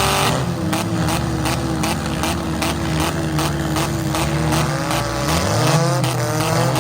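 Demolition derby cars' engines running and revving, their pitch rising and falling, with frequent short knocks and clatter over the engine sound.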